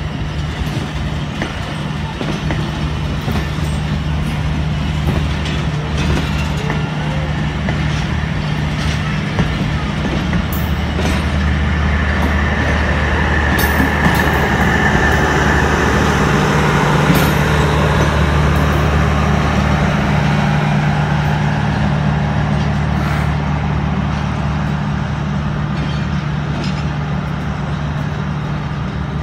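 Pakistan Railways passenger coaches rolling past at low speed, a broad rumble with occasional clacks from the wheels, over a steady low engine hum. The rumble swells in the middle and eases a little as the train draws away.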